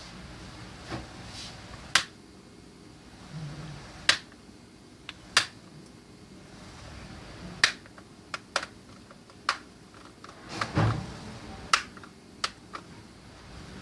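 Plastic latches of an ASUS X507UF laptop's upper case snapping open one after another as they are pried with tweezers. About a dozen sharp, irregularly spaced clicks, with the loudest cluster near the end.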